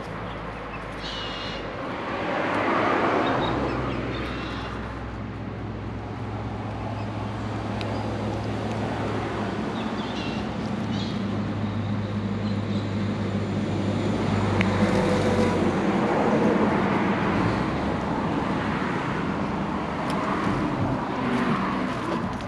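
A distant engine drone: a low, steady hum that swells about three seconds in and again in the second half. Under it, light rustling of a puppy moving through dry leaves and grass.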